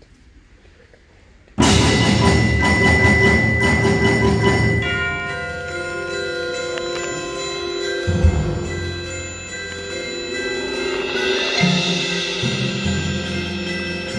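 Percussion ensemble entering suddenly about a second and a half in after a hush: mallet keyboards and tubular chimes with long ringing notes, over low drum strikes.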